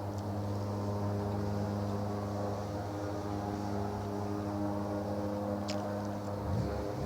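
Really loud, unexplained steady droning hum in the sky, a deep tone with several higher tones stacked above it that holds level throughout; unlike the sound of planes taking off or landing. A slight shift in the low tones near the end.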